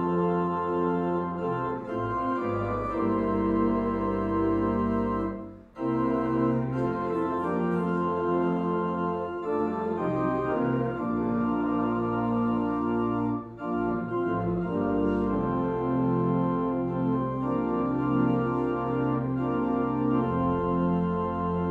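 Church organ playing a hymn tune in sustained chords, with a brief break between phrases about six seconds in.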